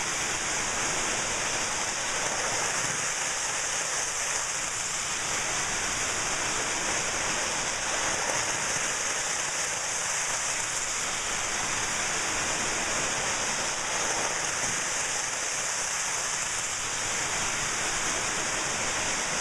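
Steady, even hiss, without rhythm or clicks.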